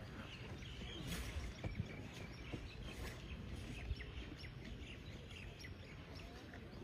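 Outdoor background noise with small birds chirping throughout, and a few soft thuds.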